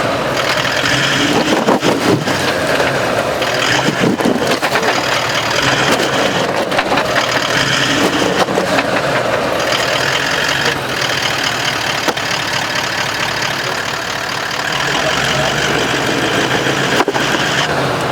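4WD's engine running steadily under load as the driver tries to drive the stuck vehicle free.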